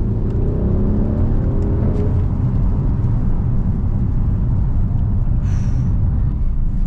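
Mercedes-AMG GLC 63 S's twin-turbo V8 pulling on the move, its note rising over the first couple of seconds, then a steady low rumble of engine and road noise. There is a brief hiss about five and a half seconds in.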